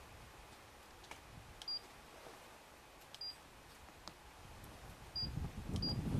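Faint, short, high-pitched electronic beeps, one every second or two, from a handheld ghost-hunting meter, with a couple of faint clicks. Near the end a low rustle of clothing and movement comes in.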